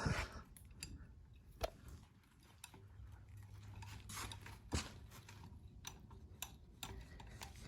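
Faint clicks and scrapes of a socket and breaker bar being worked on engine bolts, with a couple of sharper metal clicks, one about a second and a half in and another near five seconds.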